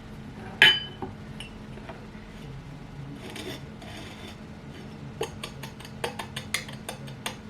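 Glassware and utensils handled while making margaritas: a sharp clink under a second in, a gritty rubbing of salt around the middle, then a quick run of light clicks and clinks near the end.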